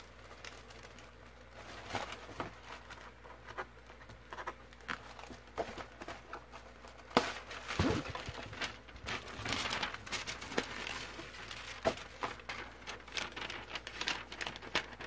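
Sheets of tracing paper and graphite paper rustling and crinkling as they are peeled off a drawing and handled, with scattered light taps and clicks; the sharpest crackle comes about seven seconds in.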